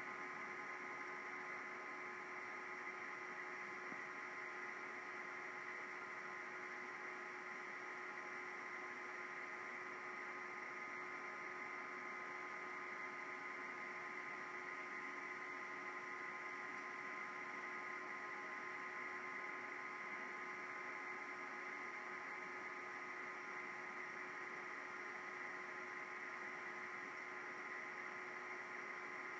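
Steady electrical hum and hiss with several constant tones layered in, unchanging throughout, with no other events.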